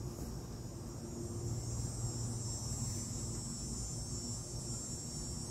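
Cicadas buzzing in a steady high drone, over a low steady rumble.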